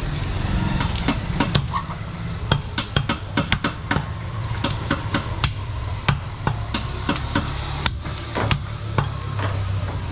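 A butcher's cleaver chopping goat meat on a wooden stump chopping block: a run of sharp, irregular chops, several a second and some in quick clusters, over a steady low hum.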